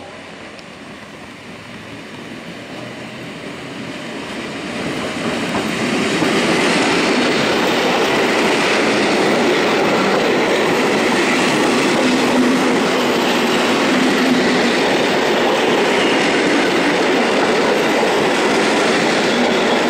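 Polish ED72 electric multiple unit arriving along the platform. It grows louder over the first six seconds, then its wheels and bogies rumble steadily on the track as the carriages run past close by.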